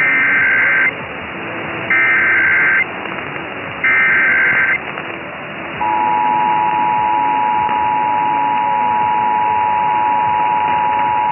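Emergency Alert System SAME header: three bursts of digital data tones, each about a second long and a second apart, then about six seconds in the steady two-tone EAS attention signal starts, over radio hiss.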